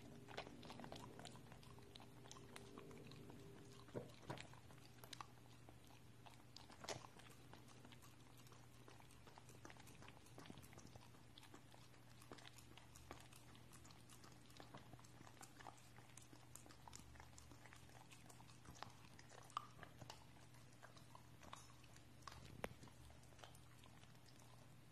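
Corgi licking peanut butter off a spoon and smacking its lips: faint, irregular wet clicks and smacks, a few a little louder than the rest.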